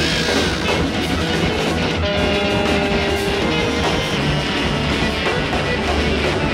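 Rock music with guitar and drums, playing steadily.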